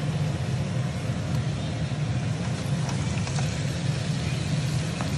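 Chicken, tomato and spices frying in a kadai and stirred with a wooden spatula, with a few light scrapes and clicks, over a steady low rumble.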